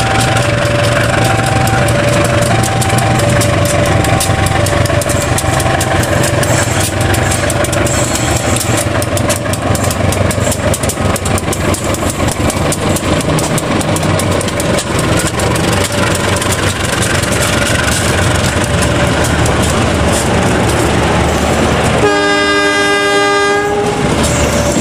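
KAI CC 201 diesel-electric locomotives and their passenger coaches passing close by, with engine rumble and the clatter of wheels over the rails. A two-note alternating electronic warning tone repeats for the first ten seconds, and a train horn sounds for about two seconds near the end.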